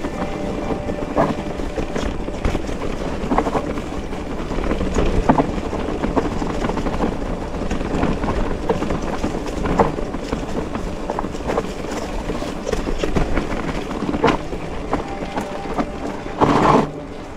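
Mountain bike rolling over rough trail: steady tyre and ground rumble with the bike rattling and knocking, and a louder clatter near the end.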